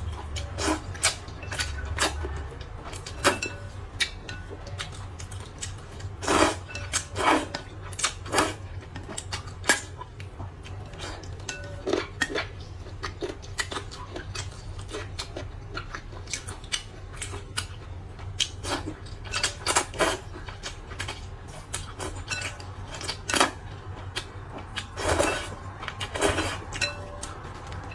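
Eating sounds: utensils clinking and scraping against a bowl in irregular clicks and short strokes, over a steady low hum.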